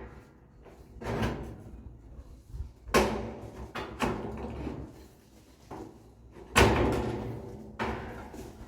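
Colorbond steel fence sheets being handled and fitted into the rails, giving about five separate metallic bangs and rattles with a short ring after each. The loudest comes about two-thirds of the way through.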